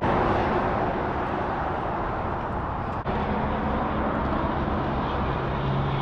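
Steady noise of highway traffic with a low hum underneath, breaking off for an instant about halfway through.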